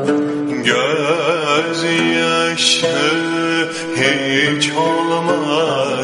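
Turkish classical music in the Uşşak makam: plucked string instruments accompanying a melody line with wide vibrato.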